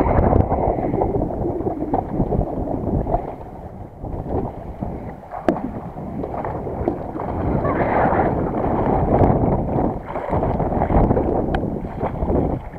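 Strong wind buffeting the microphone in gusts, with water lapping against a small boat's hull and a couple of sharp clicks.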